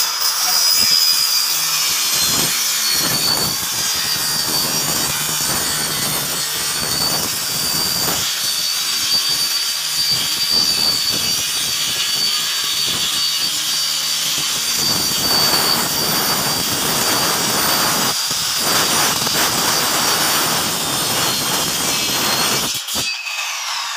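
Handheld electric circular saw running and cutting through PVC door panels: a steady high whine over a rasping cutting noise. The saw stops abruptly about a second before the end.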